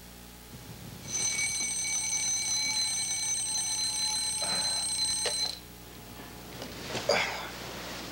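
Bedside alarm clock ringing steadily for about four seconds, then cut off suddenly. A brief thump follows a moment later.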